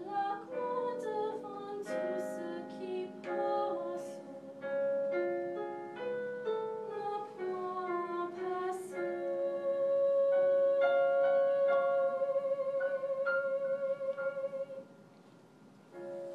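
A female classical voice sings a French art song to piano accompaniment. It closes on one long held note with vibrato over sustained piano chords, and the music ends about a second before the close.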